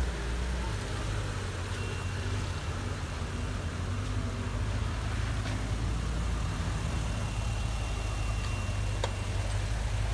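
A car engine running steadily, with a constant low drone and no change in revs.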